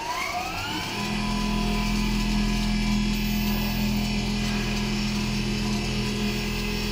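Large automatic sewing machine with a rotary sewing head starting up: a whine rises in pitch over about the first second, then the machine runs on with a steady hum.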